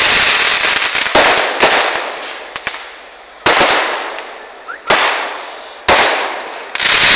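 Fireworks going off: a run of about six sharp bangs, roughly a second apart, each followed by a noisy tail that fades away.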